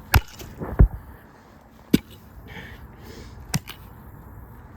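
Four sharp knocks or cracks spread over a few seconds, the second one, a little under a second in, the heaviest.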